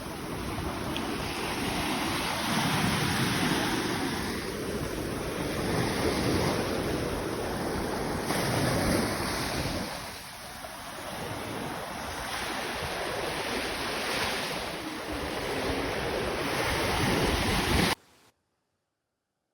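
Sea surf washing on the shore in swells, with wind buffeting the microphone; the sound cuts off suddenly near the end.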